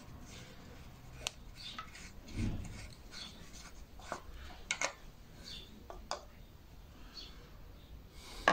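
Orange plastic oil filler cap on a Lombardini diesel engine being unscrewed and lifted off by a gloved hand: a run of small clicks and scrapes of plastic and glove rubbing on the metal filler neck, with a sharper knock at the very end.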